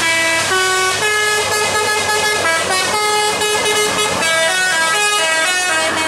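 Bus's musical air horn ('telolet') playing a tune of short notes that step up and down, over the low hum of the bus's engine.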